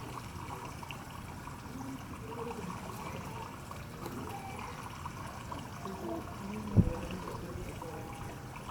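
Water trickling steadily, with one short low thump about seven seconds in.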